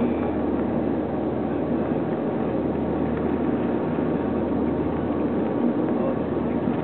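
The four turboprop engines of a de Havilland Canada Dash 7 running steadily: a constant engine drone with a few steady low tones, unchanging throughout.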